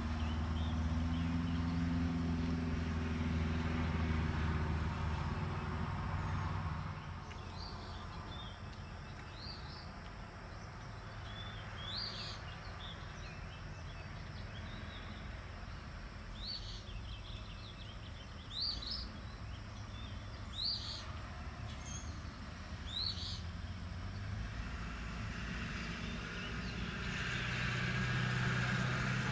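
Outdoor ambience: birds chirping in short, rising calls, scattered through the middle. A steady low vehicle engine hum fills the first several seconds, and a vehicle grows louder near the end as a pickup truck drives past on the road.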